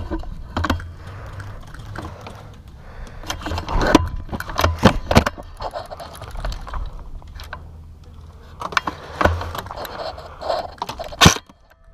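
Irregular knocks, scrapes and rustling of a player's movement and gear close to a body-worn camera microphone, over a low rumble, with one sharp loud crack near the end.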